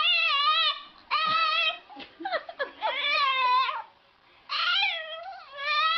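A cat meowing over and over: a string of drawn-out calls with a wavering pitch, each about a second long.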